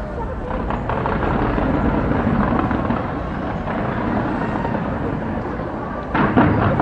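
Fireworks bursting in a dense, continuous rumble with scattered cracks, and a cluster of louder bangs about six seconds in.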